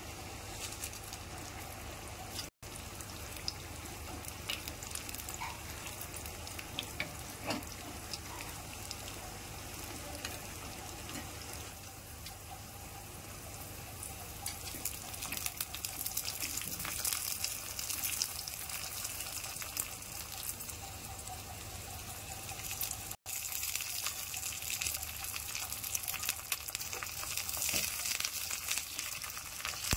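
Hot oil sizzling and crackling in a small iron kadai as chopped garlic, then green and dry red chillies, then fresh leaves fry in it. The crackling grows denser and louder over the last several seconds, and the sound cuts out for an instant twice.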